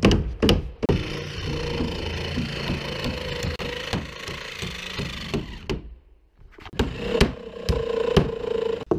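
Hammers driving nails into pine roof boards: a quick run of blows at the start, a few more near the end, with close rustling of clothing against the microphone in between.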